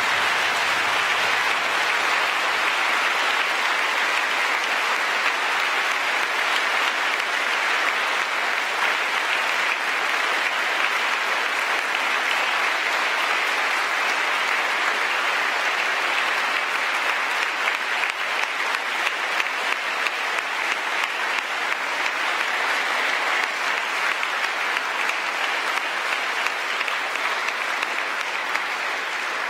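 Sustained applause from a large audience of schoolboys, a dense steady clatter of many hands clapping that dies down slightly near the end.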